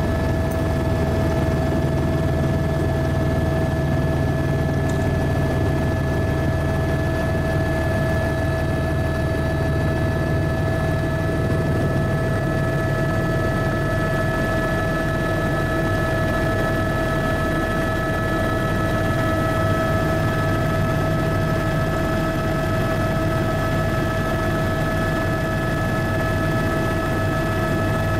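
Helicopter in flight, heard from aboard: a steady, unchanging drone of engine and rotor noise with a constant high whine over it.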